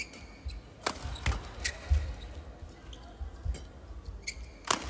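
Badminton rally: several sharp racket strikes on the shuttlecock, the loudest about a second in and near the end, with short squeaks of court shoes on the mat near the start and about four seconds in, and low thuds of footfalls.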